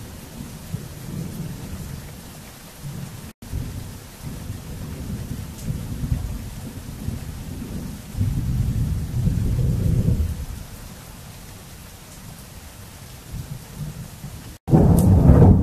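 Thunder rumbling in long, low rolls that swell about eight seconds in, then a sudden, much louder and closer peal near the end. The sound cuts out for an instant twice.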